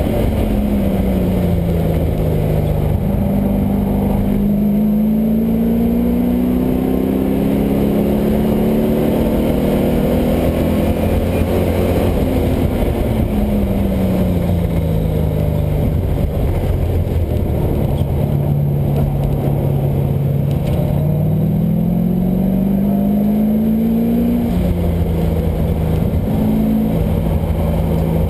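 LS1 V8 in a Mazda Miata running hard on track: the engine note drops as it slows, then climbs steadily under acceleration, twice, with quick pitch steps from gear changes near the end.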